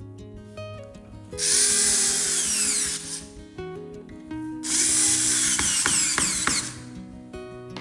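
Electric power tool running in two bursts of about one and a half to two seconds each, its whine sliding in pitch as the tool works, over background music.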